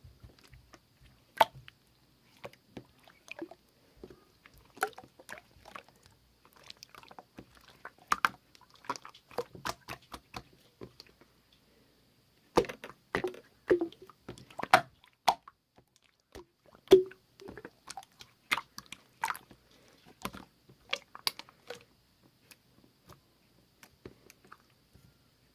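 Slime being squished and kneaded by hand, making irregular wet clicks and small pops, with a short pause about halfway through.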